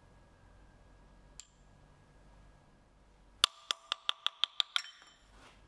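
A quick run of about eight sharp metallic clicks with a ringing tone, roughly six a second, as the T-handle hex key works the generator cover plug screws out; one faint click comes about a second and a half earlier.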